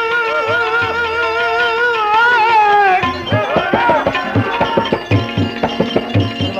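A male voice holds one long wavering note of a devotional bhajan for about three seconds, over the accompaniment. Then the tabla takes over with a quick run of strokes, with the other instruments playing under it.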